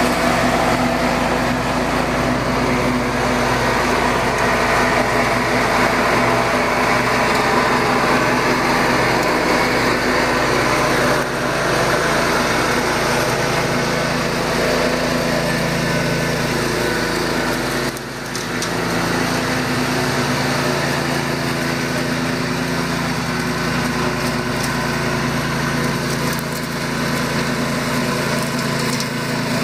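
Cub Cadet 1250 garden tractor's engine running steadily as the tractor drives across grass, with a brief dip in the sound about eighteen seconds in.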